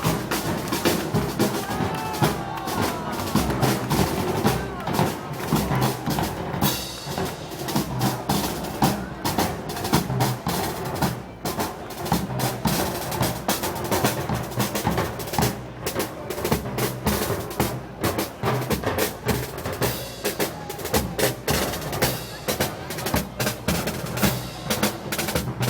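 Festival band's percussion playing: snare and bass drums beating a dense rhythm with rolls, over crowd voices.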